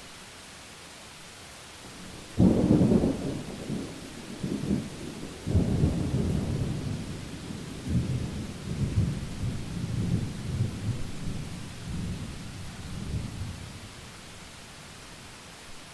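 Thunderclap about two seconds in, followed by a long rolling rumble that swells several times and dies away, over a steady hiss of rain.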